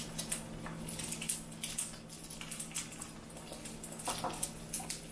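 Scattered light clicks and taps of a glass jar and spoon being handled on a countertop, over a steady low hum.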